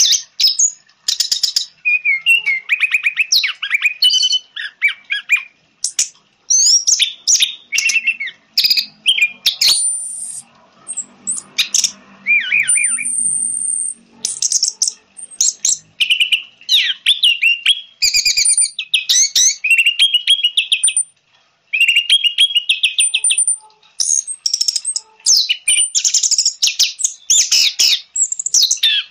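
Orange-headed thrush singing: a loud, fast, varied run of chirps, whistles and rapid trills, phrase after phrase with short pauses between.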